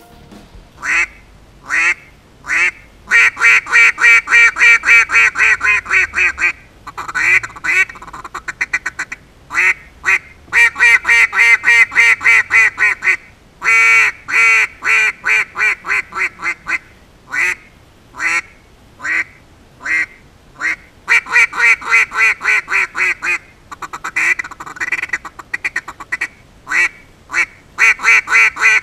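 Double-reed duck call (Fearless Calls Marsh Boss) blown in strings of loud duck quacks: two single quacks at first, then long, fast runs of quacks separated by short pauses.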